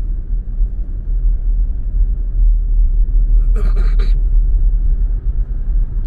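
Steady low rumble of a car driving along a road, its road and engine noise heard from inside the cabin.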